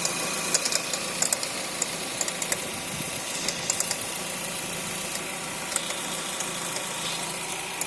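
Renault Fluence engine idling with irregular sharp clicks (an 'estalo') from the engine bay. The owner suspects the accessory belt tensioner, which vibrates heavily and has shifted off its alignment mark.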